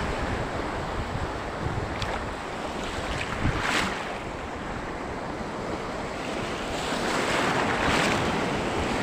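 Surf washing steadily with wind buffeting the microphone, swelling briefly a few times as waves surge.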